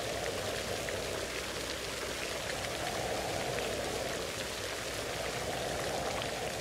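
Steady rain: a rushing wash that slowly swells and eases, with scattered single drops ticking over it.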